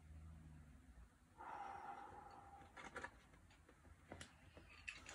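Mostly quiet, with one faint, noisy breath out about one and a half seconds in, followed by a few faint scattered clicks.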